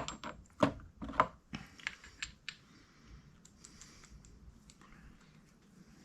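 Small metal parts of a VW rocker arm assembly clicking and clacking together as they are handled and fitted onto the rocker shaft: about half a dozen sharp clicks in the first two and a half seconds, then only faint handling noise.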